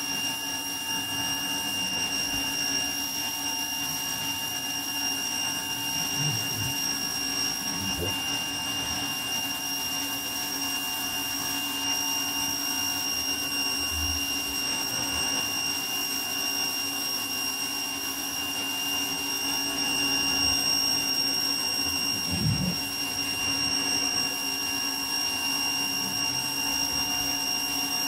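Ryobi electric pressure washer running continuously while its jet is sprayed onto concrete: a steady whine with several high tones over the hiss of the water.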